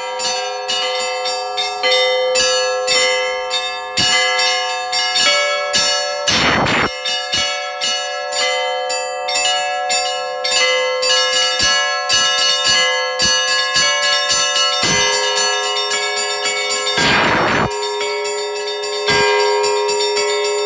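Russian Orthodox church bells ringing in a festive peal: rapid strikes on the small bells over the sustained tones of the middle bells. The heavy bell is struck a few times, at the start, about six seconds in and again near the end.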